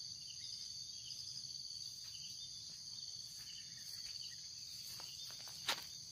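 Steady high-pitched chorus of insects such as crickets, with a few soft footsteps through grass near the end and one sharp tap, the loudest sound, just before the end.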